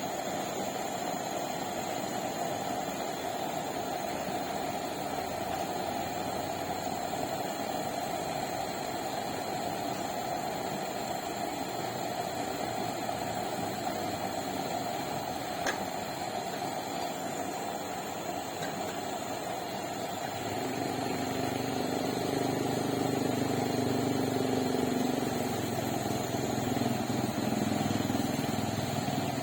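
Kerosene pressure lantern being preheated by burning pressurised fuel sprayed from its jet: a steady hissing roar of flame. About twenty seconds in, a lower rumble joins and it grows a little louder.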